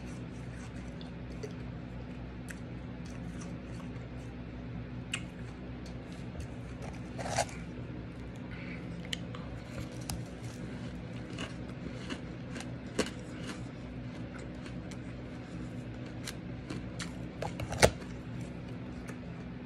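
Shaved ice crunched and squished between the teeth in irregular crisp bites, with a few louder crunches, the loudest near the end, over a steady low hum.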